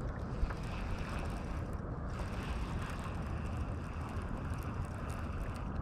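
Steady wind noise on the microphone: an even, low rumbling rush with no distinct events.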